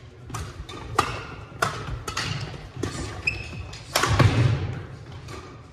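Badminton rally on a hardwood gym court: a run of sharp racket hits on the shuttlecock, about one every half second, the loudest about four seconds in, ringing in the large hall. A brief shoe squeak and feet thudding on the wooden floor come between the hits.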